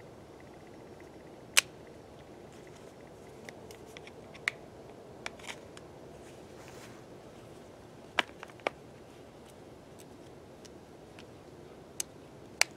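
Gear being handled and unpacked: scattered sharp clicks and taps of small hard objects, about eight spread unevenly, over a steady low hiss.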